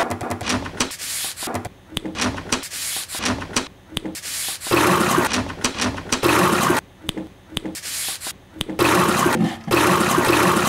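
Rubbing and scraping noises, hands on a wooden tabletop among them, cut together in short segments with abrupt breaks between them.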